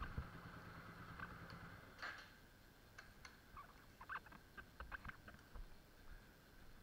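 Near silence: a faint low hum stops about two seconds in, then a scattering of faint short clicks and squeaks.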